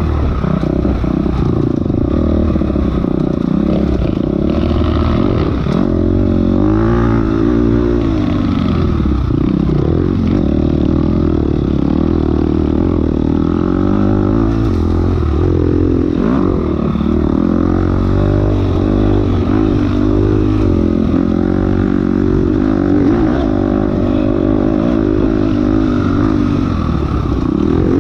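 Enduro dirt bike engine revving up and down without a break, its pitch rising and falling again and again as the throttle is worked through the stage.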